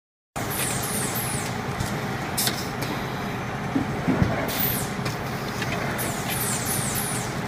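M&R Gauntlet automatic carousel screen-printing press running, its pneumatic cylinders letting out short, sharp hisses of air at irregular moments as the print heads cycle, over a steady din of shop machinery.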